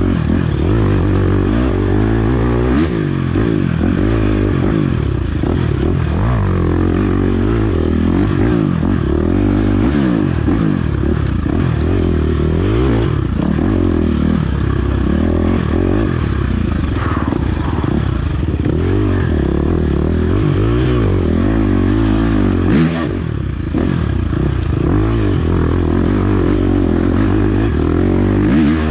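Enduro dirt bike engine at race pace, heard from a camera aboard the bike, revving up and down constantly, with clatter and scraping. There are a few sharp knocks, and the engine drops off briefly about three quarters of the way through.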